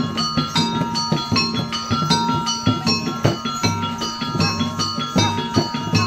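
Traditional Banjar music for the Tuping Burung masked dance: struck, ringing mallet instruments play a quick repeating melody over low drum beats.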